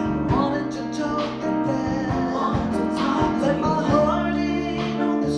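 Live band playing a slow song: singers over piano and strummed guitar.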